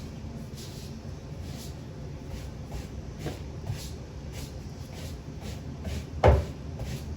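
Kitchen handling sounds: a steady low hum with faint, regularly repeating rustles, a couple of light knocks, and one loud knock about six seconds in.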